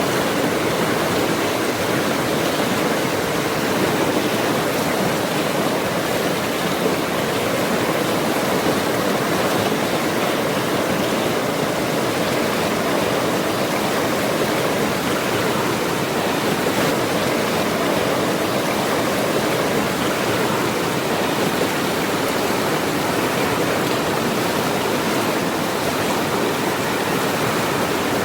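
Forest stream swollen with rainy-season water, rushing steadily over rocks.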